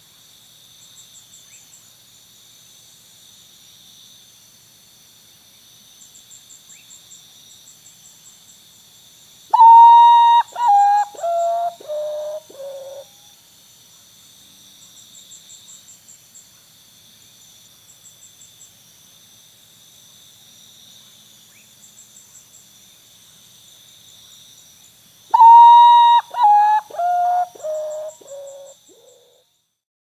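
A bird singing a phrase of about six clear whistled notes that step down in pitch, the first one longest and highest; the phrase comes twice. Behind it, rainforest insects keep up a steady high buzzing with a pulsing trill.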